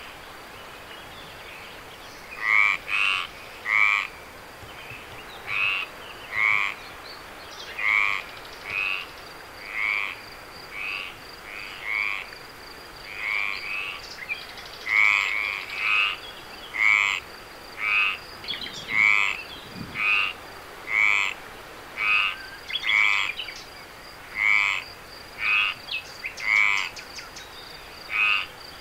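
Frogs calling at night: short, pulsed croaks repeating about once a second, starting about two seconds in. A faint, steady, high-pitched insect trill runs underneath.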